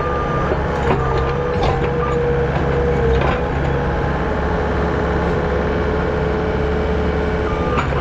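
A machine's engine running steadily, with a held whining tone over it and a few light knocks.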